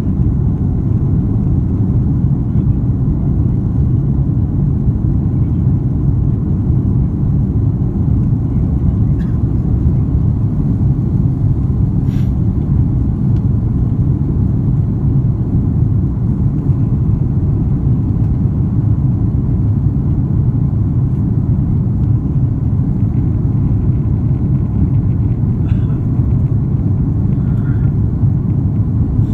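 Steady low rumble of jet engines and airflow heard inside an airliner's cabin during the climb after takeoff.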